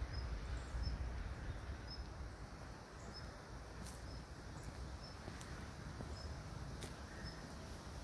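Quiet outdoor ambience with a faint, high chirp repeated about once a second. A low rumble fades over the first few seconds.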